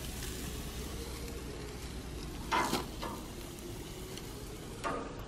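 Chicken skewers and sausages sizzling on a hot gas barbecue grill: a steady sizzle, with two brief louder sounds about two and a half seconds in and near the end.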